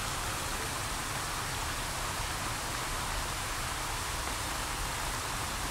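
Fountain water splashing steadily, with dozens of arching jets falling into the basin.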